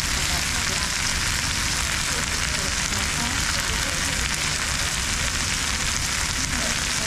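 Food sizzling steadily on a hot grill, an even hiss without breaks.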